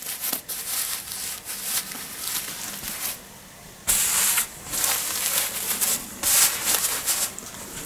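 Lupilu size 4 disposable nappies rustling and crinkling as they are moved about and pressed flat by hand on a fleece blanket. The rustling comes in irregular bursts, loudest about four seconds in.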